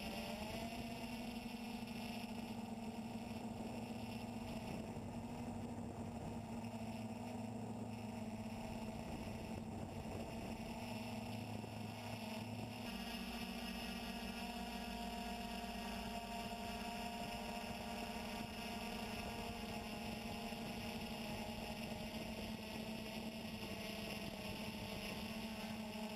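Quadcopter electric motors and propellers running in a steady buzzing hum, with the pitch and mix shifting slightly about halfway through as the throttle changes.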